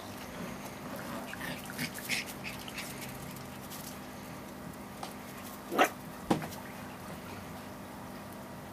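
Puppies at play: a run of short, high yips about two seconds in, then two sharp yaps about half a second apart, the loudest sounds, around six seconds in.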